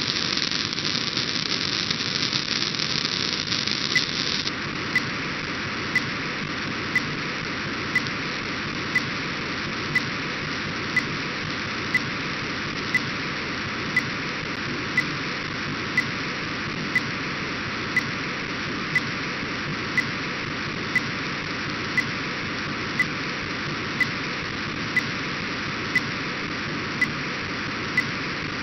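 Steady hiss of demodulated audio from an RTL-SDR receiver tuned to an Orbcomm satellite downlink near 137 MHz. The upper part of the hiss drops away about four seconds in, and from then on a short tick comes once a second.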